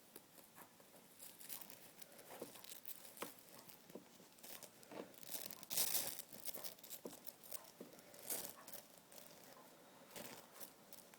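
Packaging being handled during an unboxing: crinkling and tearing with scattered small clicks and scratches, the loudest rustle about six seconds in.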